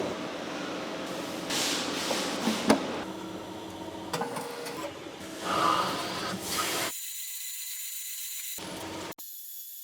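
Machine-shop noise from metalworking: a steady mechanical hiss with scattered clicks and knocks, thinning to a faint high hiss in the last few seconds.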